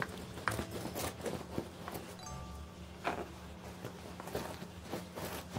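Sticky lint roller rolled back and forth over a fabric chair cushion matted with cat hair, its adhesive sheet making a rapid series of short rasps as it grips and pulls off the fabric.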